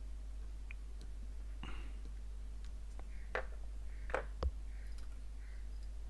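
A few small clicks and taps of hand tools working on a circuit board at a workbench, the last with a soft low knock, over a steady low electrical hum.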